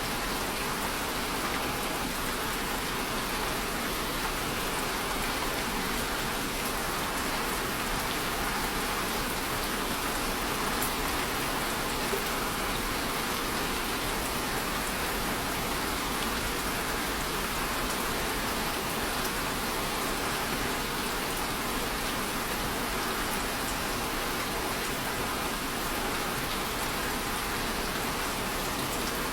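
Steady rain falling on a surface, an even hiss of many drops with no thunder.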